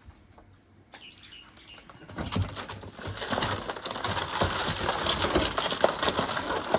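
Cracked laminated windscreen glass crackling and crunching as the screen is folded and rolled up. It starts about two seconds in and grows into dense crackling.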